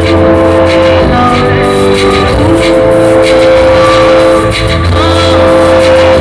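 A rock band playing loudly, with held, sustained chords over a regular drum beat.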